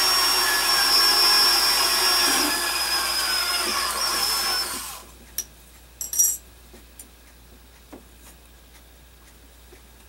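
Hand-held electric drill running steadily with a high whine as the bit bores through a small tab into a wooden block. The pitch sags slightly under load before the drill stops about five seconds in. A few light clicks follow, the sharpest about a second after the drill stops.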